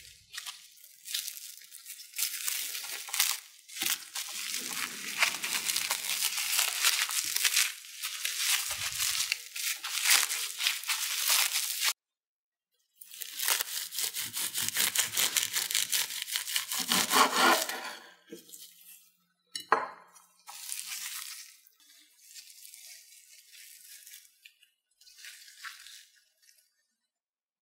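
Close-up crinkling and rustling of food being handled, with light clinks of kitchen utensils and a sharp click about twenty seconds in. It eases off to fainter, scattered handling sounds near the end.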